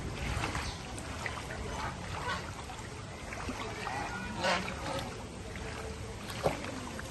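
Shallow flood water splashing and sloshing, with irregular sharp splashes, the loudest about four and a half seconds in.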